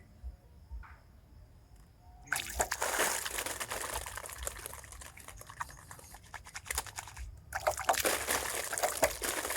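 Water pouring and trickling, starting about two seconds in, stopping briefly near the end, then running again.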